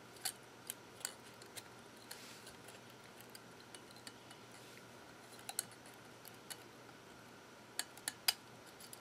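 Small hard clicks and taps of a hard drive's head arm and metal drive case being handled as the head is seated back over the platters: scattered single clicks, with a cluster of sharper ones near the end.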